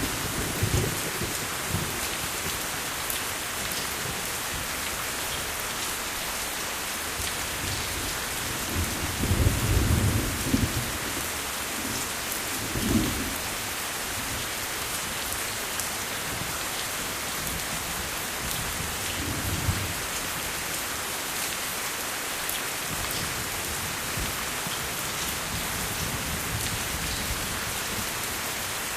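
Steady rain hissing, with low rolls of thunder: a long one about nine to eleven seconds in, and shorter ones around thirteen and twenty seconds.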